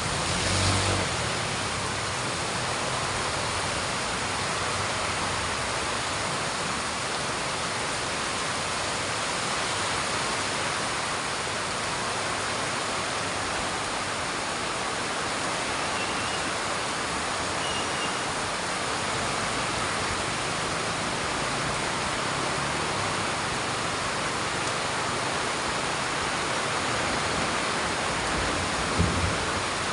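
Heavy rain falling in a steady, dense hiss without letting up, with a brief low thump just after the start and another near the end.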